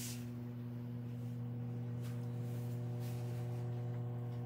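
Steady low electrical hum made of several even tones, with a few faint clicks about two and three seconds in.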